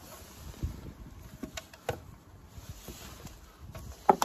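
Timber boards being handled on wooden decking: a few scattered knocks and clatters of wood on wood, the sharpest and loudest near the end.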